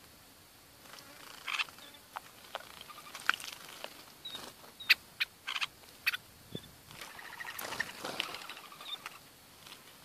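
Small birds, bulbuls among them, bathing in a shallow pool: scattered short chirps and sharp clicks, with a longer spell of splashing water about eight seconds in.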